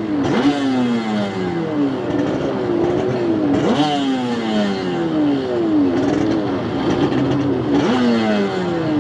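Racing stand-up jet skis' two-stroke engines revving. The pitch jumps up sharply and then falls away, over and over, as the throttle is opened and backed off.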